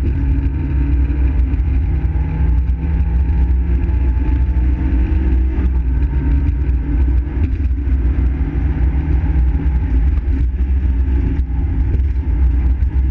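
Fiat Seicento rally car's engine running hard at speed, heard from inside the cabin over a heavy low rumble. Its note drops about six seconds in, then climbs again.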